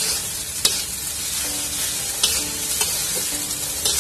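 Fried rice with sweet corn sizzling in a wok while a metal spatula stirs and tosses it. There are several sharp clacks of the spatula striking the pan.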